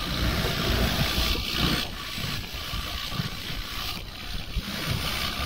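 Water rushing and splashing around a moving longtail boat, with a low rumble underneath.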